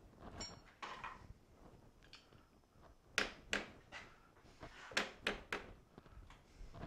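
Sharp metal knocks and clanks of a pipe piece being handled and seated against the fixed jaw of a milling-machine vise: two hard knocks a little after three seconds in, then three more around five seconds, with smaller clicks between.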